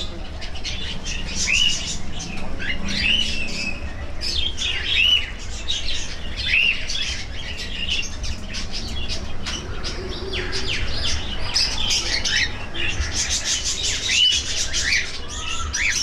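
A mixed flock of aviary birds chirping and calling together: a continuous chatter of short, high tweets with many quick rising-and-falling call notes.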